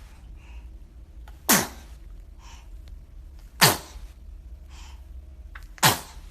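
A baby sneezing three times in a row, about two seconds apart, each sneeze sharp and sudden with a falling pitch, with faint breaths between them.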